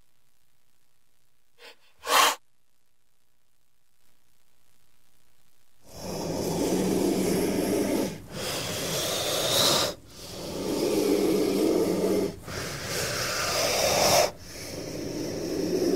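A snake hissing: one short sharp hiss about two seconds in, then a run of five long hisses of about two seconds each, with brief breaks between them.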